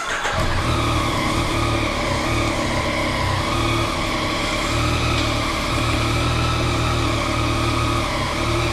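Yamaha FJ-09's 847 cc inline-three engine starts up and settles straight into a steady idle inside a garage, with no revving.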